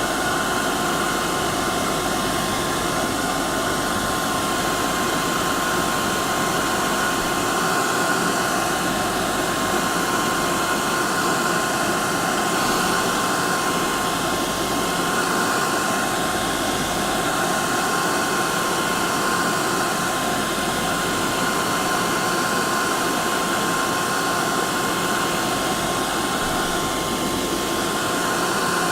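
Hair dryer running continuously: a steady blowing hiss with a constant motor whine.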